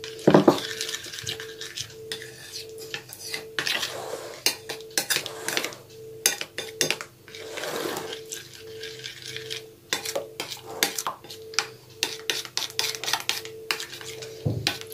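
Metal spoon stirring melted chocolate glaze in a small ceramic bowl, with frequent irregular clinks and scrapes of the spoon against the bowl.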